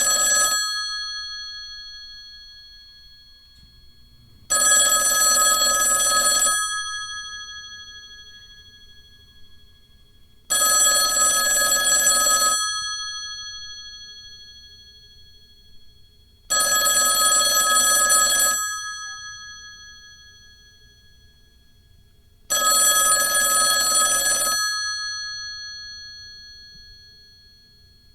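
Old landline telephone's bell ringing in the classic 'dring' pattern: rings of about two seconds repeating every six seconds, four full rings here after the tail of one at the start, each leaving the bells humming and fading out before the next.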